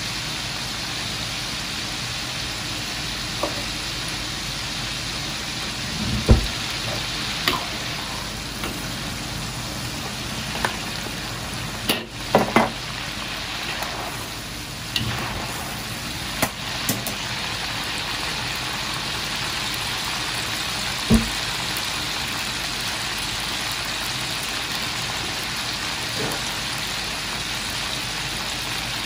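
Oil bubbling and sizzling steadily in a carbon-steel wok as lobster, crab and chicken wing pieces deep-fry. Scattered clinks and knocks come about midway as a wire mesh strainer stirs the pieces.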